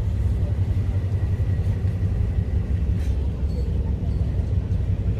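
Steady low rumble of a cruise boat's engine under way.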